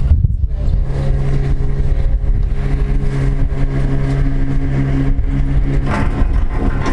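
Running noise inside a gondola cabin riding the haul rope: a steady low rumble with an even mechanical hum, changing near the end as the cabin passes a lift tower.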